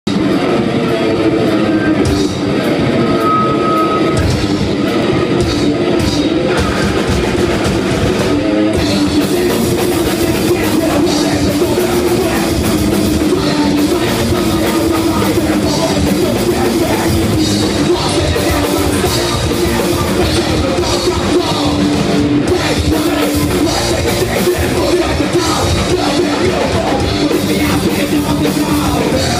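Heavy metal band playing loud live, with electric guitar and drum kit; the sound gets fuller and brighter about nine seconds in.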